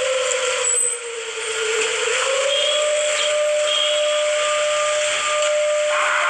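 Emergency alert siren: a single wailing tone slides down, climbs back up and then holds steady, over a constant loud hiss of static.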